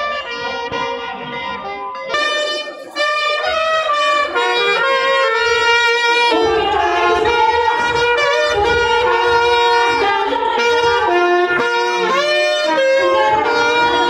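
Saxophone and trumpet playing a melody together, live, getting louder about three seconds in.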